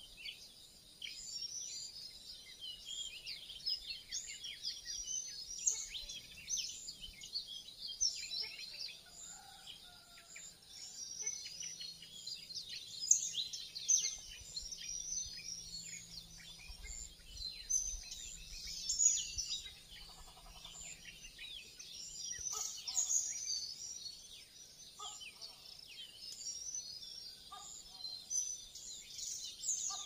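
Dawn chorus of many small birds chirping and calling at once, a dense twitter of short high notes. From about two-thirds of the way through, a lower-pitched call repeats in short notes every couple of seconds.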